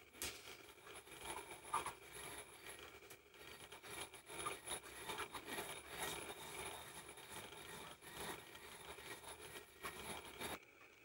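White ceramic pestle grinding coarse red madder pigment granules against the inside of a ceramic mortar: a continuous gritty scraping and rubbing as the pigment is crushed fine. It stops abruptly near the end.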